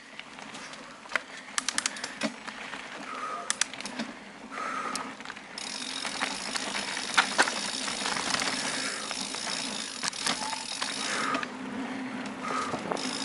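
Bicycle rattling over a rough dirt forest trail, with sharp clicks and knocks from bumps and a steady mechanical ticking that gets louder about halfway through.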